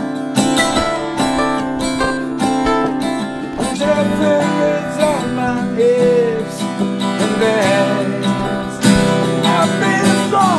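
Acoustic guitar strummed in a steady rhythm, with a man's voice singing along over it in places.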